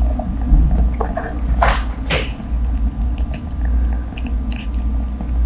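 Ragdoll cat eating soft flakes of cooked trout from a plate: small chewing clicks and smacks over a steady low purr, with two short breathy bursts about two seconds in.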